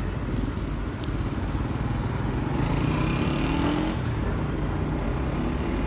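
Traffic noise from motor vehicles running, with a motorcycle engine rising in pitch as it speeds up, from about two and a half to four seconds in.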